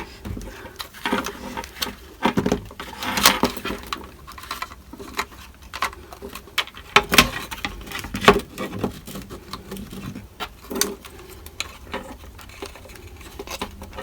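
Irregular small clicks, taps and rattles of plastic switch parts and wiring being handled and pushed into place by hand.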